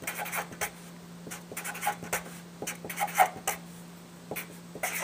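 Marker pen writing on a whiteboard: a string of short, irregular scratchy strokes with a few brief squeaks as letters and bond lines are drawn.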